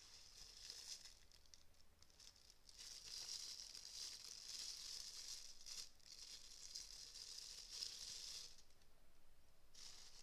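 Faint crinkling and rustling of a plastic wrapper being handled and opened around a newly unboxed wristwatch, in stretches, the longest running for about five seconds in the middle.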